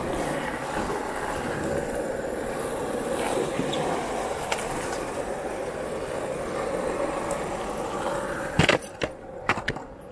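Timber Axolotl longboard's urethane wheels rolling over asphalt in a steady rumble. Near the end comes one sharp knock, then a few lighter clicks.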